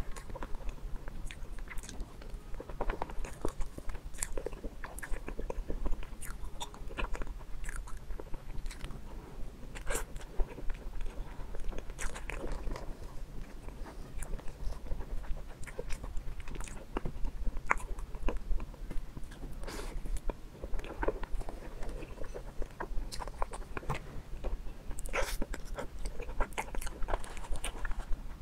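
Close-miked mouth sounds of someone eating soft mousse cake from a spoon: wet chewing and lip smacks in many small, irregular clicks, with no pauses longer than a moment.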